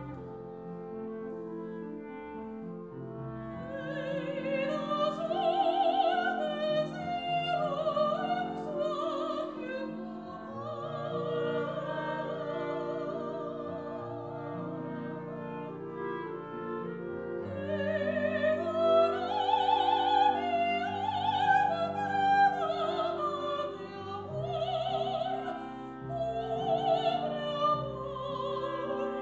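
Soprano singing a zarzuela song in full operatic voice with wide vibrato, accompanied by a chamber group of clarinets, bassoon and piano.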